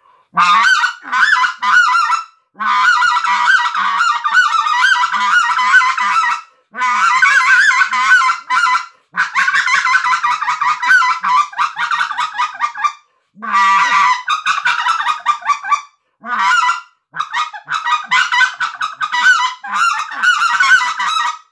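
Redbone 'Black Gold' hand-made goose call blown in quick runs of honks and clucks, in about eight bursts with short pauses between them. It is tuned lower than the high-pitched model, with a raspier sound.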